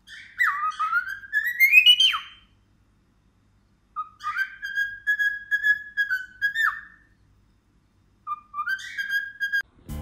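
Cockatiel whistling a tune in three phrases: the first climbs in pitch and drops off sharply, the second holds mostly level, and the third is short and rising.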